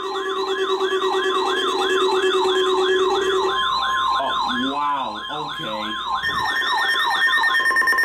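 Dozens of NOAA weather radios sounding their alert alarms together for a required weekly test. Warbling siren alarms repeat about three times a second over a layer of steady beeping tones, among them the 1050 Hz weather-alert tone. One tone drops out partway through and another starts, and the warbling stops near the end.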